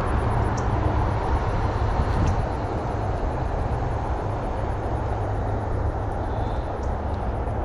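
Steady rumble and roar of highway traffic, with no separate events standing out.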